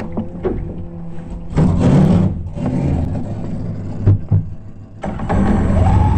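Fuel-injected 6-litre race-boat engine running hard, heard from the cockpit, with a loud rush of water and spray over the hull about one and a half seconds in and a couple of thumps around four seconds. The engine note falls away briefly just before five seconds, then comes back loud and rises in pitch.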